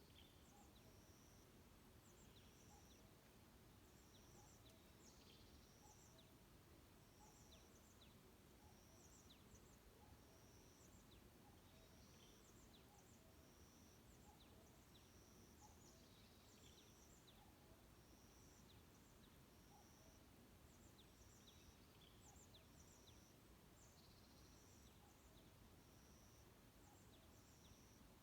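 Faint, high-pitched calls of wild forest birds: a short call repeated over and over, about once or twice a second, over a low steady background rumble.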